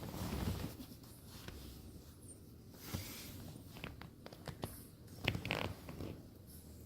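French bulldog puppy playing with a toy: short scratchy rustles and clicks, with the loudest cluster about five and a half seconds in.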